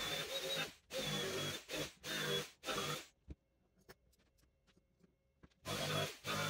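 Small handheld corded power tool running in short bursts of about half a second to a second each, a high whine over a low buzz, as it works on wood. It stops about three seconds in, leaving only a few faint clicks, and starts again in short bursts near the end.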